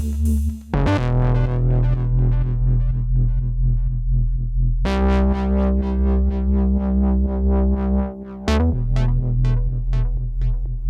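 Electronic background music: synthesizer chords over a heavy bass line with a quick arpeggiated synth pattern, the chords changing about five seconds in and again about three seconds later.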